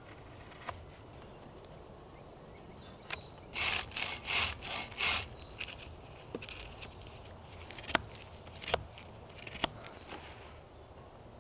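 Fixed-blade knife carving into a wooden post with its bark on, a quick run of about six rasping strokes a few seconds in, cutting a notch. Later come a few sharp separate wooden knocks as poles are handled.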